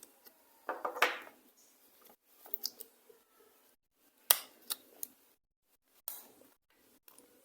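Plastic clicks, snaps and scrapes of a keypad mobile phone being handled and opened for repair, with the sharpest click about four seconds in.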